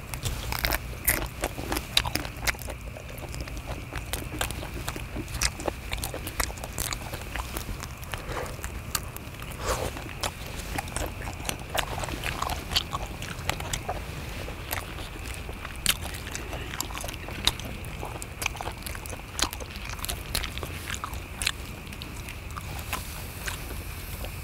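Close-up chewing and biting into salt-grilled king prawns, with irregular crunches and crackles from the shells as they are bitten and peeled.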